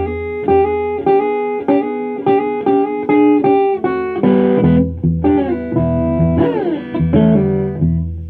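Electric guitar played solo: picked chords in a steady rhythm, a chord held about four seconds in, then notes sliding down in pitch around seven seconds in. No singing.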